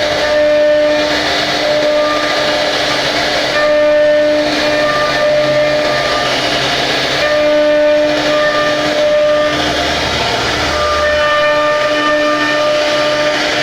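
CNC router spindle whining steadily while its bit cuts wood, the hiss of the cutting swelling and easing every few seconds as the tool moves through the workpiece.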